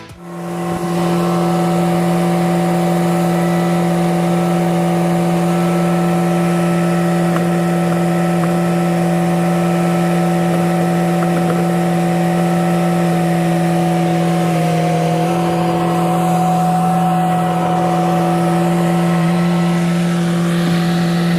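An engine running at a steady speed, holding one even pitch, which shifts slightly about fourteen seconds in.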